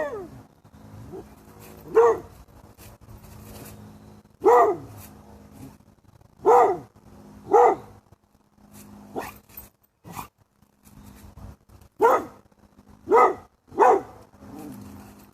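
A dog barking: about eight single barks, spaced one to a few seconds apart, with a faint steady hum beneath.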